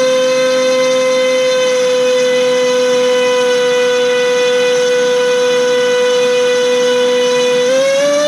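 LDpower 2305 2600 kV brushless motor spinning a DAL 5045 V2 bullnose propeller on a thrust stand: a steady, loud whine held at part throttle. Near the end the pitch rises as the throttle is opened up.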